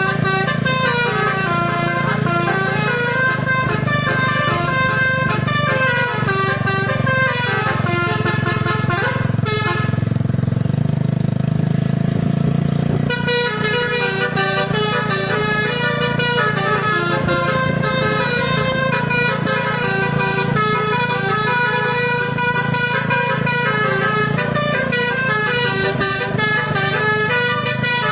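Bus 'telolet' musical air horn in the basuri style, playing quick stepping melodies one after another. About ten seconds in it pauses for roughly three seconds, then starts up again. A steady low rumble runs underneath.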